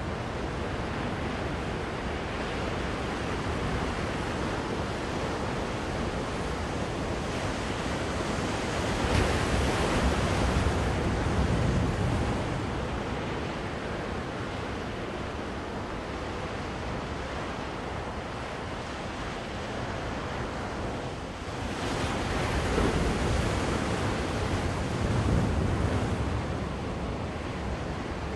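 Ocean surf breaking on a beach, a continuous rushing roar with wind buffeting the microphone. It swells louder twice, about a third of the way in and again past three-quarters of the way through.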